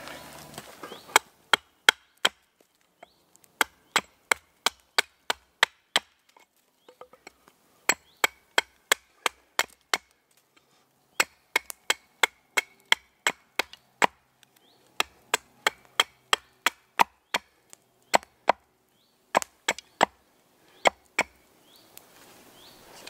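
A hand hatchet chopping into a stick of wood braced on a log chopping block. Dozens of sharp single chops come about two a second, in runs broken by short pauses.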